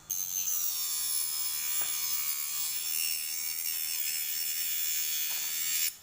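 Homemade mini cutter driven by a 12-volt DC motor running at high speed with a high-pitched whine and hiss. It starts abruptly, runs steadily for about six seconds, and cuts off suddenly near the end.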